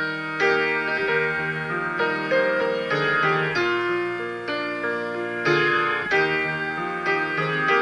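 Background instrumental music led by piano or electric keyboard, notes struck in a steady flowing pattern.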